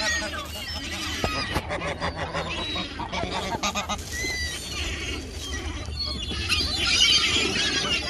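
A mixed flock of herring gulls and other gulls squealing and calling over one another, with geese honking, as they scramble together over food on the water. Wings beat and water splashes in the scrum.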